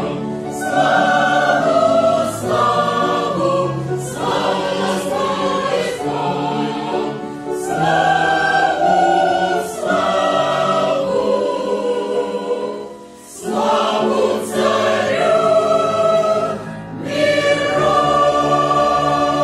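Mixed-voice church choir, men and women together, singing a hymn about the Saviour's coming in parts. The phrases are separated by short breaks, the longest about two-thirds of the way through.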